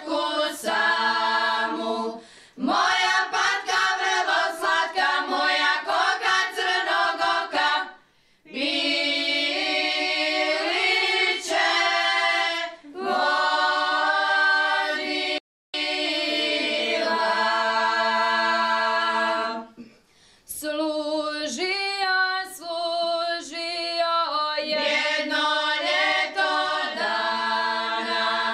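A women's Šokac folk singing group singing unaccompanied, several voices together, in phrases of a few seconds with short breath pauses between them.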